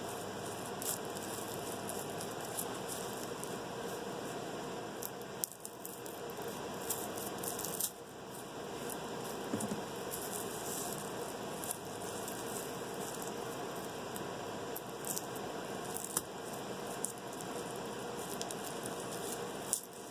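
Dry papery garlic skins crackling and rustling in small scattered clicks as a garlic bulb is picked apart and crushed by toes and fingers, over a steady background hiss.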